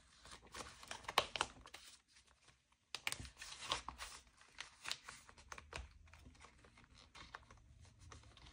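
Paper bills and cash envelopes being handled: faint, irregular rustling and crinkling with scattered light clicks, a little louder about a second in and again around three to four seconds.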